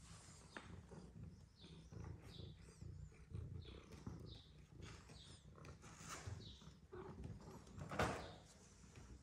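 Young kittens mewing faintly, short high-pitched calls repeated every second or so, over a low rumble. Near the end there is one brief, much louder noise as an adult cat passes close.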